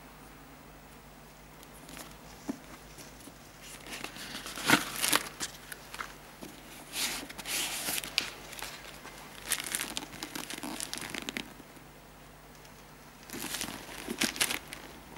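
Clear plastic wrapping crinkling in several separate bouts as a leather sneaker is handled, loudest about five seconds in.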